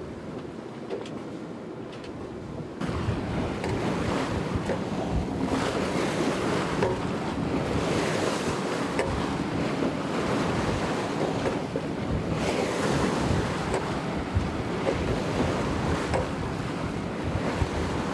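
A sailboat under way: the bow wave is hissing and splashing along the hull in choppy water, with wind buffeting the microphone. It gets louder about three seconds in.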